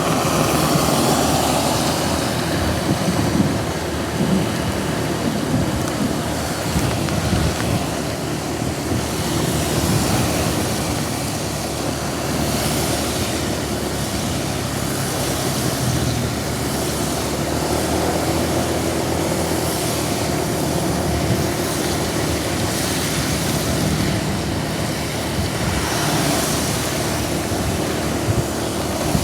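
Steady noise of heavy rain and wet road traffic, with several louder hissing swells as vehicles pass on the wet road.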